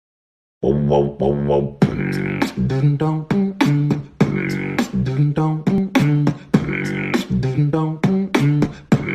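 A beatboxed rhythm with a hummed or sung vocal line over it, beginning sharply about half a second in after silence and keeping a steady beat of a few hits a second.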